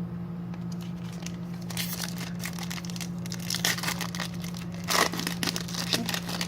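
A foil trading-card pack wrapper being torn open and crinkled in the hands, a rustling crackle that starts a couple of seconds in, with its loudest rip about five seconds in. A steady low hum runs underneath.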